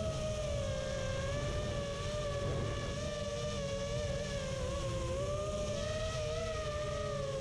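FPV racing quadcopter's electric motors and propellers whining in flight, the pitch wavering gently up and down with the throttle, over a low rush of wind on the drone's camera microphone.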